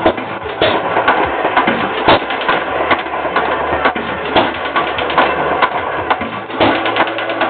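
1914 Hercules 1½ hp hit-and-miss engine running, newly shimmed: irregular sharp pops every second or less over a steady mechanical clatter.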